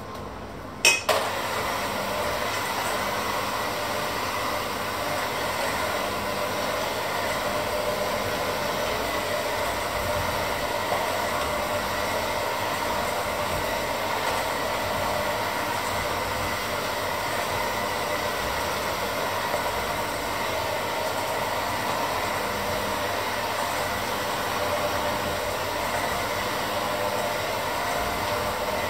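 Electric hand mixer switched on with a sharp click about a second in, then running steadily at one speed, its beaters working a crumbly dough in a stainless steel bowl.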